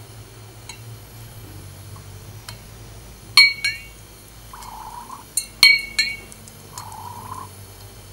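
Wire-hung lighter parts clinking against the rim of a glass jar as they are lifted out of the liquid and lowered back in: one ringing clink about three seconds in and a quick cluster of clinks about five and a half to six seconds in. Two short, softer sounds fall between and after them.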